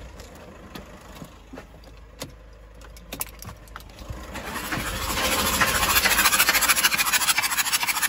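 A few clicks and knocks, then from about four seconds in the Audi Q7's 3.0 TDI V6 diesel is cranked on the starter with its glow plugs removed. The air and diesel puffing out of the open glow-plug holes make a loud, fast, even hissing pulse. This is a cranking test to see whether a leaking injector is flooding a cylinder, with the supply to one suspect injector blanked off.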